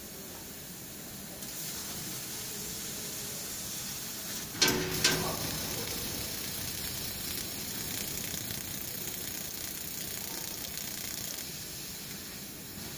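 500 W fiber laser cutting head working 5.5 mm black steel: a steady hiss of gas and cutting, with one sudden loud burst about four and a half seconds in, then steady hissing that eases off near the end.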